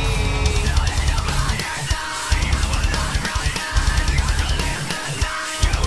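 Background rock music with drums and a strong bass line, laid over the footage.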